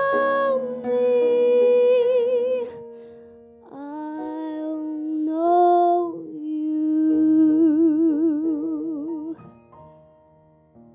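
A woman's voice singing the closing notes of a musical-theatre ballad, over piano: three long held phrases, the last ending in a wide vibrato. The voice stops a little past two thirds of the way through, and the piano dies away.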